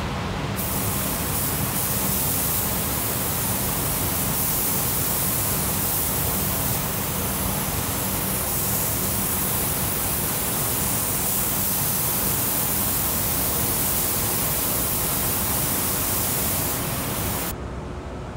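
Gravity-feed air spray guns hissing steadily as they spray paint in a paint booth. The hiss drops away near the end.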